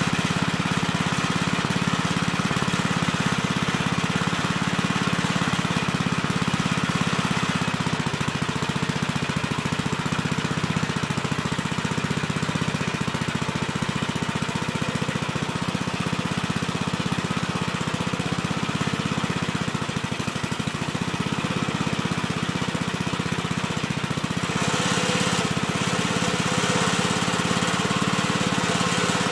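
Gravely Terramite compact backhoe's engine running steadily. About 25 seconds in, a harsher, higher-pitched noise joins it for a couple of seconds.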